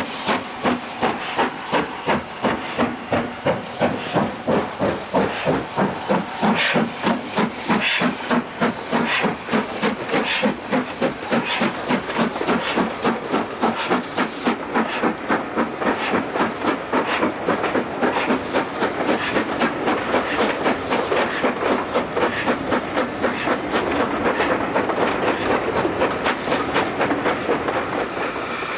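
Steam locomotive working hard, its exhaust beating regularly over a steady hiss of steam. The beats come about two a second at first and closer together in the second half as the train gathers speed.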